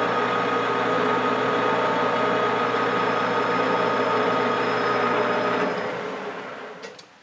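Grizzly metal lathe running steadily at about 270 rpm, a hum made of several steady tones, then switched off about six seconds in and spinning down to a stop, with a couple of clicks as it stops.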